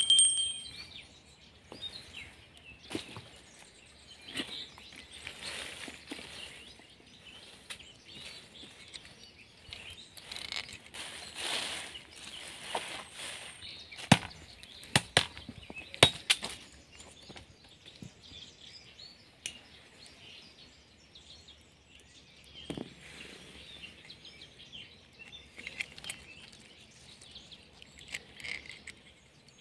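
Dry branches rustling as they are handled, then a few hard chopping strikes of a small axe into sticks laid over a log stump about halfway through; birds chirp throughout.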